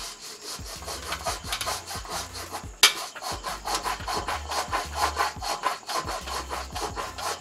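Cloth dampened with thinner being scrubbed back and forth over a TV's LED backlight strip, a quick run of scratchy rubbing strokes. A single sharp click stands out about three seconds in.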